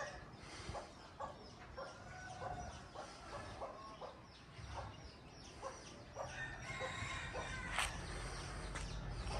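Chickens clucking: short, irregular calls repeated throughout, with a single sharp click late on.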